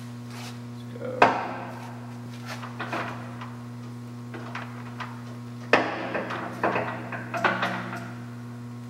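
Sharp metal clunks from a Kingston HJ-1700 lathe's headstock and 3-jaw chuck as they are handled by hand: one loud knock about a second in, then another loud knock followed by a run of smaller knocks and rattles from about six seconds. A steady low hum runs underneath.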